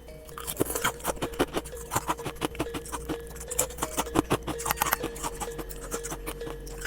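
Jelly being squished or eaten up close: quick, irregular sticky clicks and squelches, several a second, over a steady low tone.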